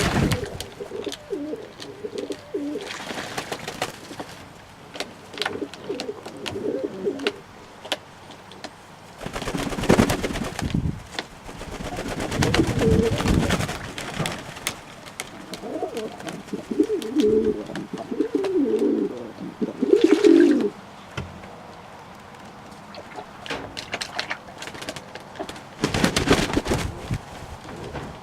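Fantail doves cooing repeatedly in low, warbling phrases. A few short rushing noises break in now and then.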